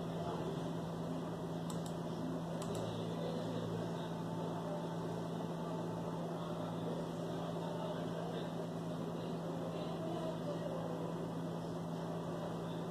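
Steady low electrical hum over an even hiss: room tone.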